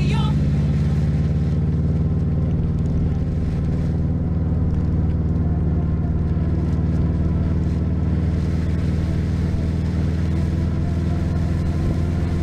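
Steady low drone of a car's engine and road noise while cruising, plausibly the 2004 Subaru WRX STi's turbocharged flat-four, with no rise or fall in pitch.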